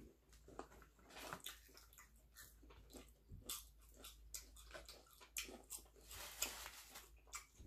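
Faint crunching and chewing of crispy fried food, with scattered clicks and rustles of cardboard food boxes and napkins being handled.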